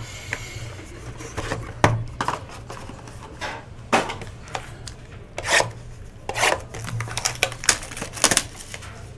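Hands handling a cardboard hobby box and card packs on a tabletop: scattered sharp knocks, taps and rustles, coming thicker in the last few seconds, over a low steady hum.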